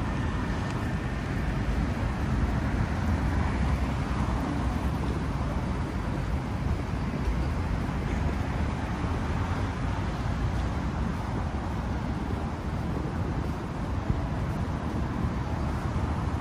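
City street ambience of road traffic: a steady rumble of passing cars with no single event standing out.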